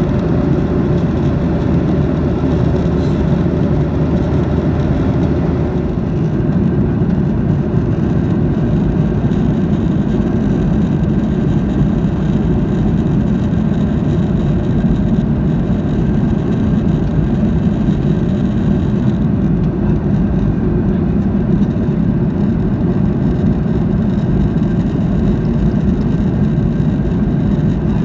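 Steady cabin noise inside a Boeing 737-800: the rush of its CFM56 engines and airflow, with a low hum underneath that stops about six seconds in.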